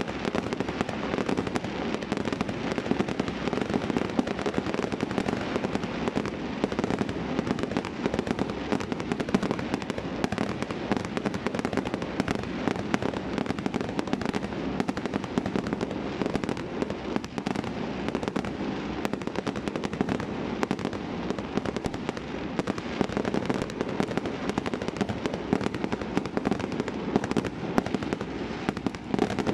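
Fireworks display going off in a dense, continuous barrage of bangs and crackling, with no let-up.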